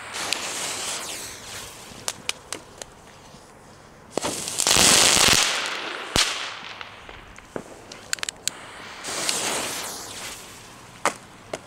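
Nico Crackling Balls ground fireworks going off in turn: three hissing bursts of coloured fire, the loudest about four seconds in, with sharp crackling pops scattered between them.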